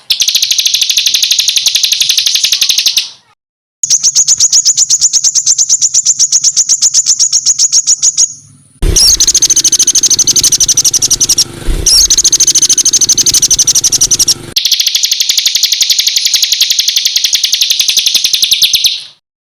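A songbird's harsh, high-pitched rapid-fire call ('tembakan kasar'): fast runs of sharp notes repeated many times a second. It comes in four long bursts, each broken off abruptly with a brief gap between them.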